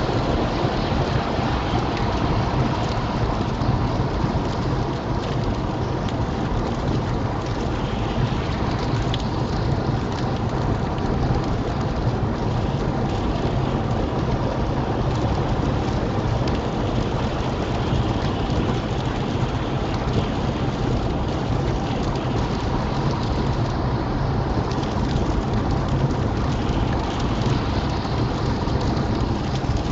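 Rain hitting a small car's windscreen, heard from inside the car over steady tyre and road noise on a wet motorway, with a constant low rumble.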